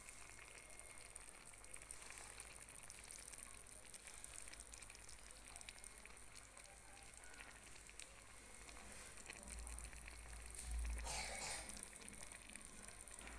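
Faint steady sizzling and crackling of a meat, potato and pea tajine simmering in its clay pot, with a brief louder bump near the end.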